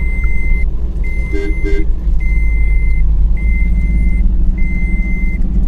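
A car's in-cabin warning chime beeping steadily, a long high beep about every second and a bit, five times, over loud engine and road rumble inside the moving car.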